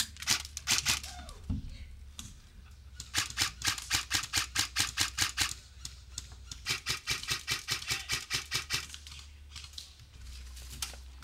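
Airsoft rifle firing rapid strings of shots: a short one at the start, then two longer ones in the middle, each a fast run of sharp clicks.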